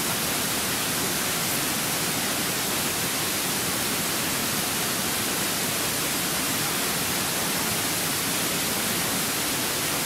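Steady, even rushing of nearby water, an unbroken hiss with no change in level.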